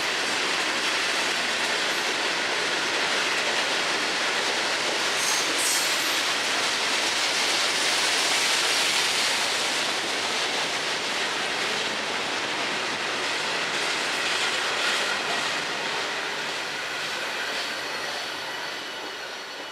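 CSX freight train's hopper cars rolling past on the rails, wheels clattering, with a thin high squeal from the wheels. The sound fades over the last few seconds as the end of the train goes by.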